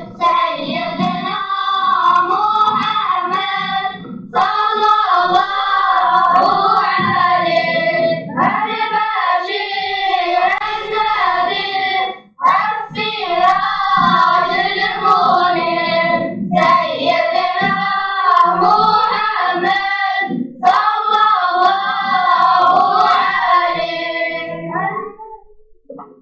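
A group of children singing a devotional chant together, unaccompanied, in phrases of about four seconds with short breaks between them. The singing fades out near the end.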